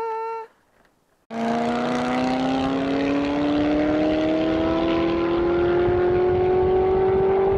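Car engine heard from inside the cabin, pulling steadily under acceleration, its pitch rising slowly and evenly for several seconds. It starts about a second in, after a brief near-silent gap.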